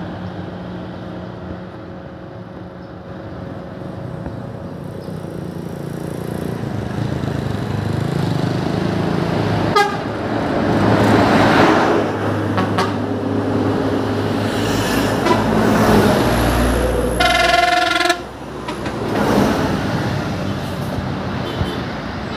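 Large intercity coaches and other traffic passing close by, the engine and road noise swelling as each goes past. A horn sounds for about a second about seventeen seconds in.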